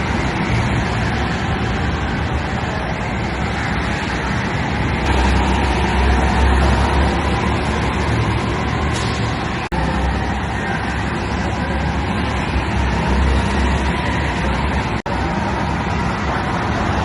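Cars running on a race track: a steady engine drone with a low rumble that swells about five seconds in. The sound breaks off briefly twice, at edits.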